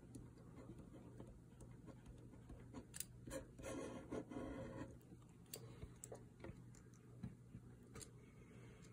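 Faint scratching of a pen writing on paper, with a few light clicks around it, over a low steady hum.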